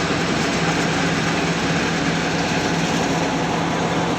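Combine harvester running steadily: a constant engine drone with a low hum.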